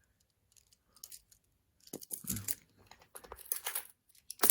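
Small plastic Bakugan toy pieces clicking and rattling in the hands, with some rustling. A few faint ticks come first, busier clicking and rustling starts about two seconds in, and a sharp click comes near the end.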